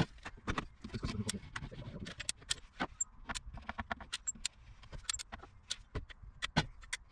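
Hand-squeezed caulking gun clicking as its trigger is pumped over and over, pushing a bead of sealant out of the tube: sharp, irregular clicks, a few each second.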